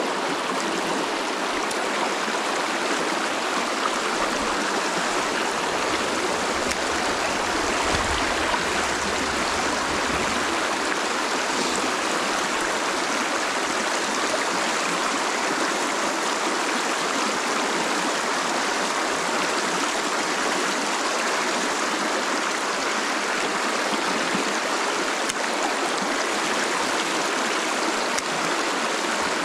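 Shallow creek running fast over rocks in riffles: a steady rush of water close to the microphone.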